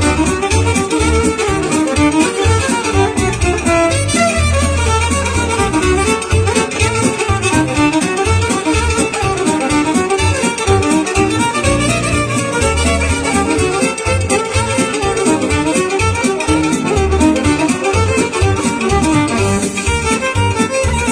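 Live band music: a violin plays the lead over keyboards and accordion, with a steady pulsing bass beat underneath.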